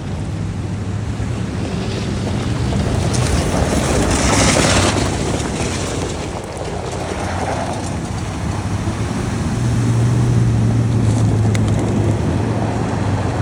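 Off-road 4x4 engine running steadily through a water crossing, with a loud rush of splashing water about four seconds in and wind on the microphone. The engine gets louder about ten seconds in.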